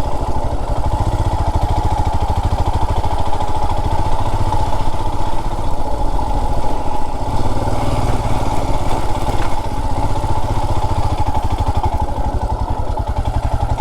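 Royal Enfield Himalayan's single-cylinder engine running steadily at low revs, with a fast, even pulse of firing strokes.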